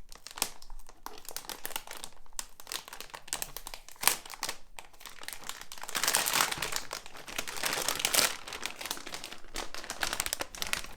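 Packaging of a boxed graphics card being opened and handled by hand: irregular crinkling and rustling with scattered clicks, busiest about six to eight seconds in.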